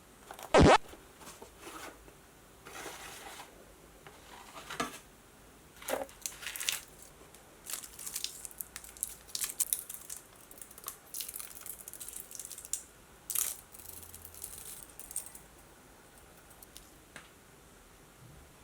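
Packaging being opened and handled by hand: one sharp knock about half a second in, then repeated crinkling and tearing of wrapping that dies away in the last few seconds.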